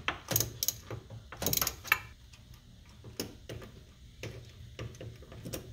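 Socket ratchet clicking in short, irregular bursts as a loosened 13 mm bolt is backed out, with light metallic taps in between.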